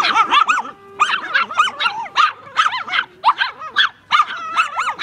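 Small dogs barking in a rapid run of high-pitched yaps, several a second, with a couple of brief pauses.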